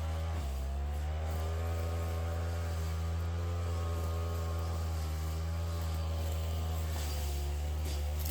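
Two-stroke brush cutter engine running steadily at high speed, a constant engine drone whose pitch dips briefly near the start and again about seven seconds in as the blade takes load.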